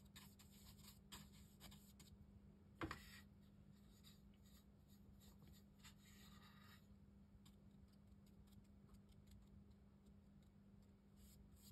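Faint scratchy strokes of a watercolour brush on rough cotton rag paper, mostly in the first seven seconds, with one brief knock about three seconds in. A steady low hum runs underneath.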